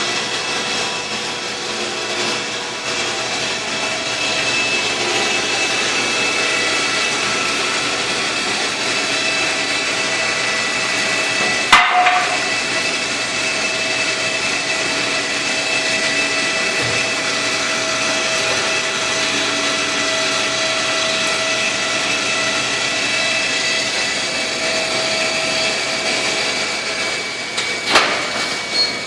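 A power tool running steadily with a constant whine, with a sharp knock about twelve seconds in and a couple more near the end.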